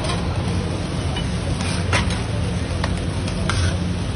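Flat metal spatula scraping and clinking on a flat iron griddle and steel plate as kothu parotta is scooped up, a few sharp irregular clinks over a steady low rumble.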